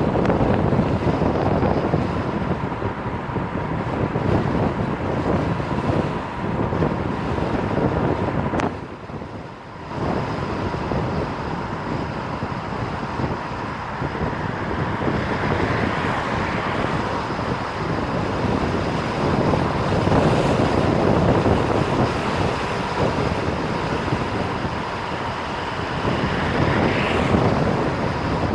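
Wind rushing over the microphone of a camera riding on a moving car, with a faint steady whine underneath; the noise drops briefly about nine seconds in.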